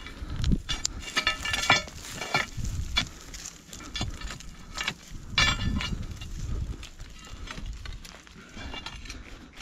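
Steel crowbar levering and scraping against rock, with irregular knocks and grating scrapes, loudest about a second in and again midway; the rock shifts under it but does not come free.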